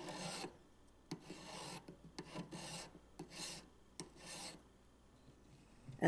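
Hand file rasping across the edge of an Argentium sterling silver box clasp in short strokes, about one a second, five in all, with faint clicks between them. The fused stop is being filed flush with the side plate.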